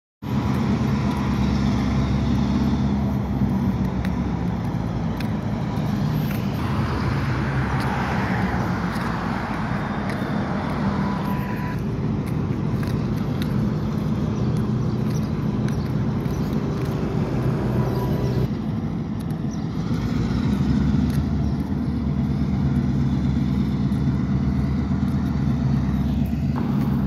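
A steady low drone of heavy diesel engines under outdoor road traffic, with a vehicle rushing past about seven seconds in.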